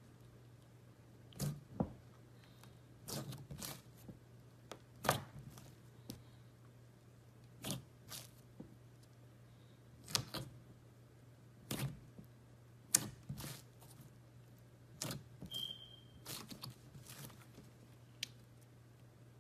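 Glitter slime with sequins being pressed, folded and stretched by hand, making sharp wet clicks and pops at irregular intervals of a second or two, over a faint steady low hum.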